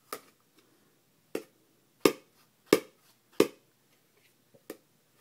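A measuring cup banging on an upturned mixing bowl used as a drum: six knocks at uneven intervals, the middle three the loudest.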